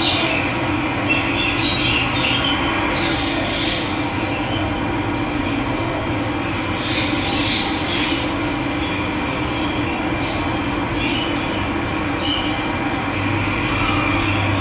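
A steady rush of running water, with birds chirping in short bursts now and then.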